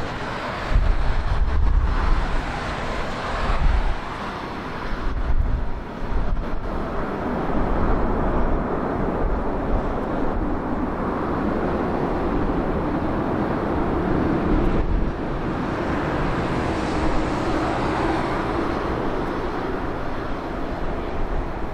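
Jet aircraft engine noise at an airport, a steady rushing that swells and fades over several seconds as the plane passes, with wind buffeting the microphone in the first few seconds.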